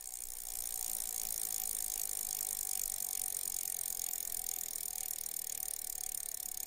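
Mountain bike rolling along a dirt forest trail: steady tyre and drivetrain noise with light rattling, picked up by a camera mounted on the bike, fading in over the first second.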